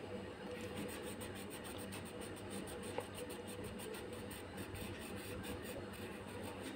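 Crayon scribbling back and forth on a paper worksheet: quick rhythmic scratching, several strokes a second, with a small click about three seconds in.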